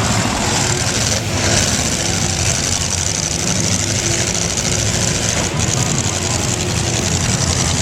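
Demolition derby cars' engines running together, a loud, steady mechanical din with no pauses.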